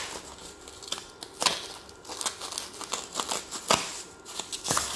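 Scissors snipping through foam and plastic packing wrap, with a few sharp cuts amid plastic crinkling.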